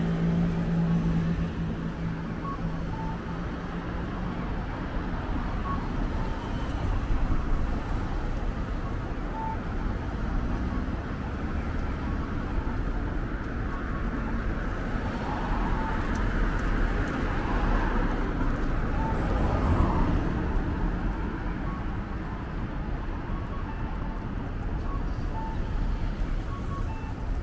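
City street traffic: a steady wash of passing cars, with a vehicle going by closer and louder about fifteen to twenty seconds in.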